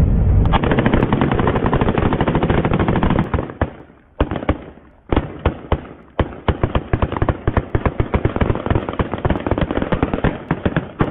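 Heavy gunfire from several high-powered rifles: for about three and a half seconds the shots overlap into a continuous automatic rattle. After a brief lull and a short burst comes a quick run of separate shots, several a second.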